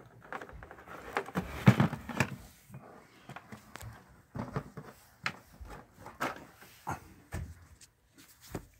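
Cardboard display board with plastic toys mounted on it being handled and shifted: irregular knocks, taps and rustles, loudest in a cluster about two seconds in, then a few separate sharp clicks.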